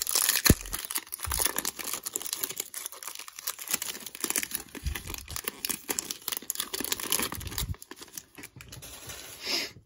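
A 2020 Bowman baseball card pack's foil wrapper being torn open and crinkled by hand: a dense, crackling rustle with a sharp snap about half a second in. It thins out near the end as the cards come free.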